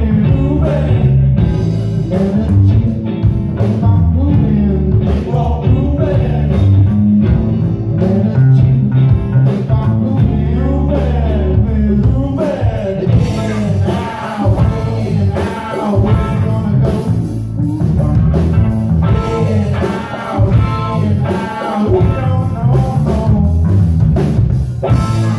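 Live rock band playing, with electric bass, electric guitar and drum kit heard together. The cymbals grow louder and brighter about halfway through.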